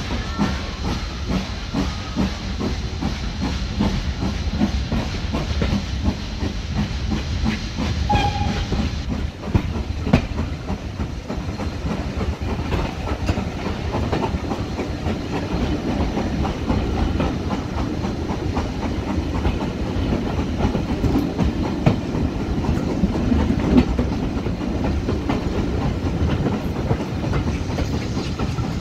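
Steam train moving off, heard from an open coach window: a steady hiss of escaping steam that stops about nine seconds in, then the rumble and clickety-clack of the coach wheels on the rails as the train runs on.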